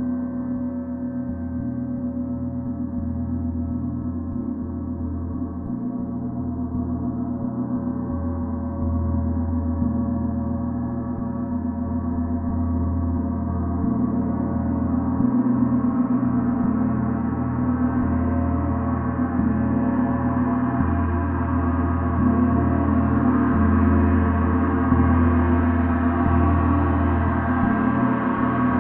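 A gong played continuously, a dense sustained wash of many overlapping tones over a low rumble. It slowly swells, growing louder and brighter over the stretch.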